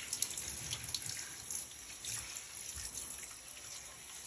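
Handheld shower head spraying water over a small wet dog in a bathtub: a steady hiss of spray with light splashes and drips.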